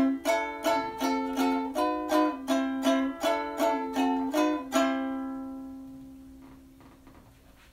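Outro music: a plucked string instrument plays a quick tune for about five seconds, ending on one note that rings out and fades away.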